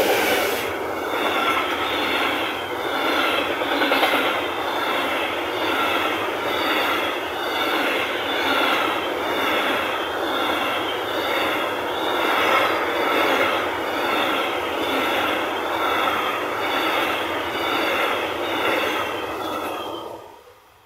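A train running past at close range: a steady, loud rush of wheels on rails for about twenty seconds, with a high squeal that repeats at a regular beat. It cuts off near the end.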